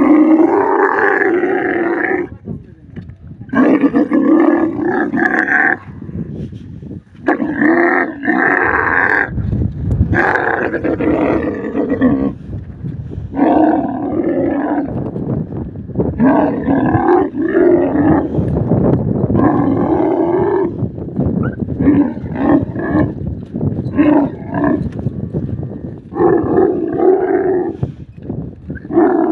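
Camels calling loudly during mating, a bull mounted on a couched female: a string of about ten rough, drawn-out bellows, each around two seconds long, with short pauses between.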